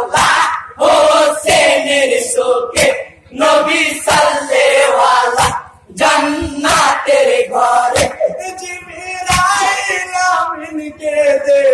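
Group of men singing a Bengali jari (morsiya), a mourning song for Husayn and Karbala, together in sustained sung lines. A sharp hand strike keeps time about every one and a half seconds.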